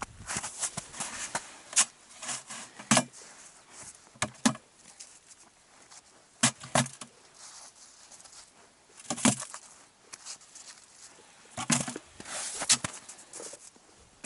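Small perch being picked up off the snow and dropped into a cut-open plastic canister: irregular knocks and clatters of fish landing in the plastic, in little clusters a few seconds apart, with rustling and crunching of snow in between.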